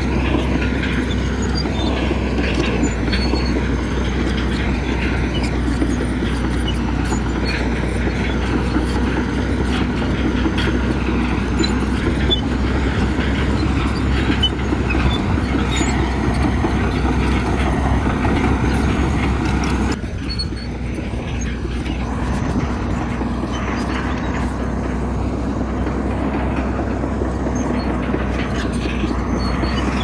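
Bulldozer's diesel engine running under load with the steel tracks clanking and rattling. The sound drops a little and changes suddenly about two-thirds of the way through.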